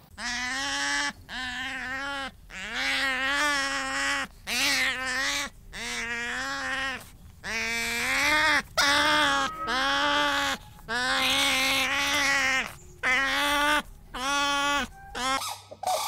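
Sea otter calling over and over: about a dozen loud, pitched cries, each under a second or so long, with short gaps between them.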